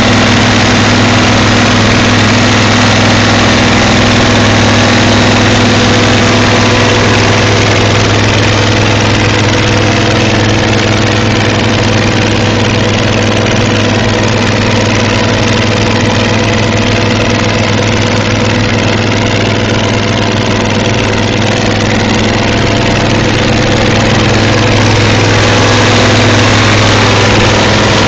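Diesel engine of a 1978 Versatile 900 four-wheel-drive tractor running loud and steady under load as the tractor pushes snow with a front blade.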